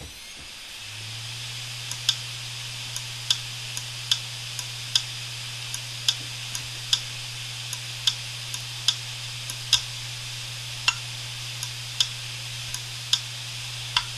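Opened Samsung hard disk drive running: its spinning platters give a steady hum that settles in about a second in, while the head actuator clicks sharply about once a second with fainter ticks between. The repeated clicking is the heads failing to read, the drive unable to identify itself.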